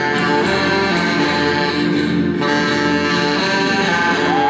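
Live rock band playing: a saxophone holds long notes over electric guitars, one note near the end bending up and then falling away.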